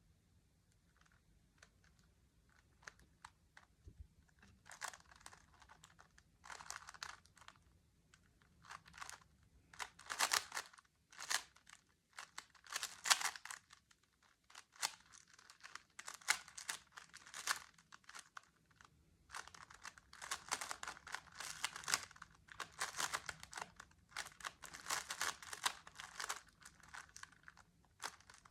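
A Rubik's cube being turned quickly during a speedsolve: plastic layers clicking and clacking in fast bursts of turns, with short pauses between them. A few scattered clicks come first, and the bursts grow denser after about five seconds.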